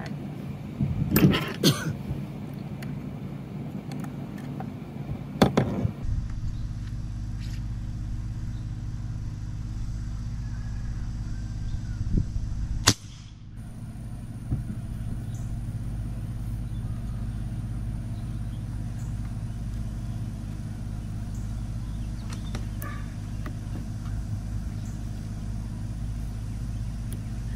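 A single sharp report from an AEA Challenger .357 BullPup PCP air rifle, fitted with an AEA regulator, about halfway through, over a steady low outdoor rumble. In the first few seconds there are louder knocks and clicks from the rifle being handled on its towel-padded rest.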